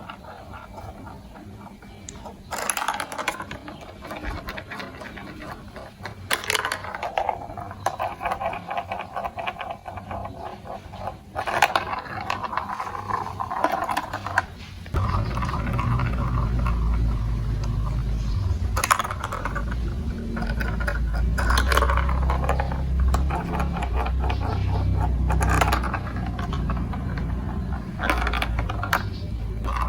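Plastic marble-run building blocks and glass marbles clicking and rattling against each other, with separate sharp clacks every few seconds. About halfway through a steady low rumble sets in, like marbles rolling along plastic track, and the clicks go on over it.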